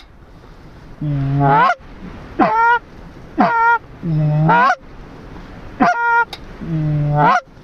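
Goose calling: six loud honks in a steady series, longer low notes that swing up in pitch at the end alternating with shorter, higher notes.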